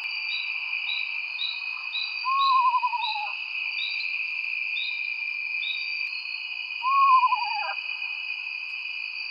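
An owl calls twice, each call a quavering whinny that rises briefly and then falls in pitch over about a second. Beneath it runs a steady high-pitched chorus, with a string of short, high chirps about two a second through the first half.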